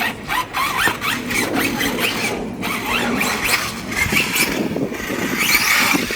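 Traxxas Sledge 6S RC monster truck's electric motor and drivetrain whining in a string of short rising bursts as the throttle is punched again and again.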